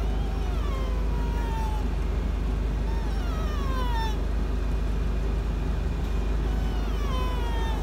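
E.L.K. mouth-blown deer call sounding drawn-out doe bleats that fall in pitch, three in a row about three seconds apart, calling mule deer in. A running Jeep idles underneath as a low steady hum.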